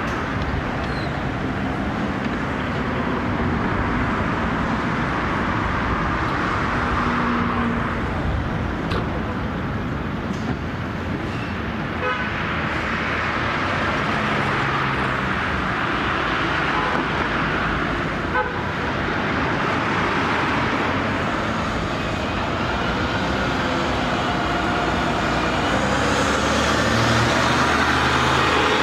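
City street traffic: cars and diesel city buses running past, with a couple of short car-horn toots, and a bus engine growing louder near the end as a bus passes close.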